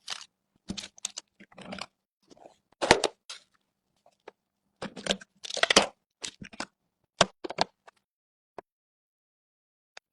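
Computer parts and their packaging being handled during a PC build: irregular clicks, snaps and crinkling rustles, the loudest a few seconds in, then a quiet spell near the end.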